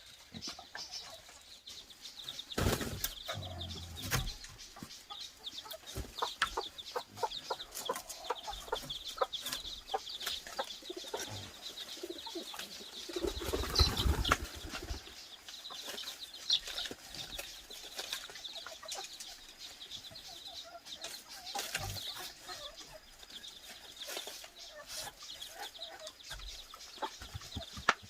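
Chickens clucking and flapping their wings, among many scattered knocks, clicks and rustles, with heavier thumps around the third, fourteenth and twenty-second seconds.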